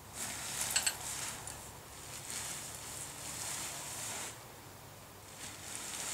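Nylon parachute canopy rustling as it is pulled out of its bag and spread on the grass, in several stretches, with a few sharp clicks about a second in.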